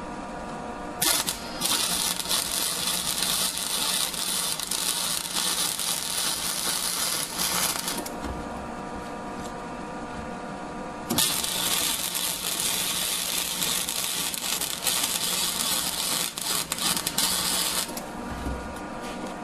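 Lincoln Weld-Pak 100 wire-feed welder laying bead around a pipe butt joint: the arc crackles steadily for about seven seconds, stops for about three, then crackles for another seven, over the welder's constant hum.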